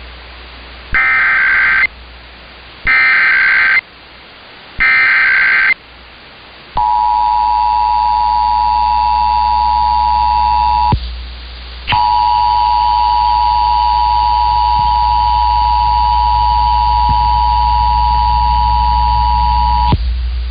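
Emergency Alert System test tones broadcast over AM radio. First come three short bursts of warbling digital SAME header data, about a second apart. Then the steady two-tone EAS attention signal sounds, cuts out for about a second partway through, and resumes.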